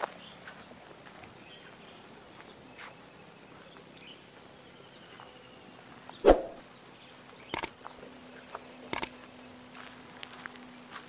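Faint rural outdoor ambience picked up by an action camera's built-in microphone, under a steady faint high-pitched whine. Sharp handling knocks on the camera come a little past halfway, the loudest about six seconds in, followed by two quick double clicks.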